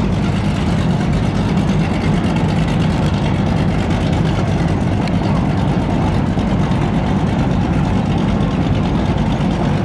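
Boat engine running steadily, a low, even drone under a wash of water and wind noise.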